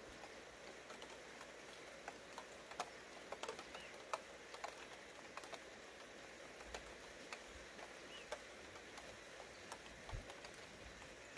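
Light rain falling, faint: scattered, irregular drops ticking and pattering over a soft steady hiss.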